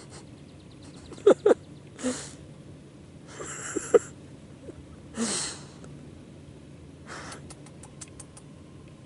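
Llama snorting and huffing at close range: a string of short, breathy bursts a second or so apart, with a few faint clicks near the end.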